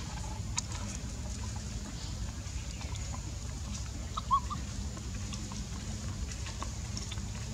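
Steady low outdoor rumble with scattered faint ticks, and a single short, high chirp from an animal about four seconds in.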